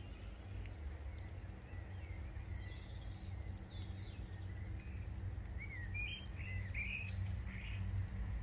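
Small birds chirping and twittering in short calls over a steady low rumble that grows slightly louder near the end.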